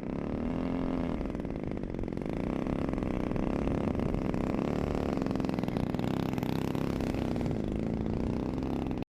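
Small engine running steadily, its pitch wavering slightly up and down; it cuts off abruptly near the end.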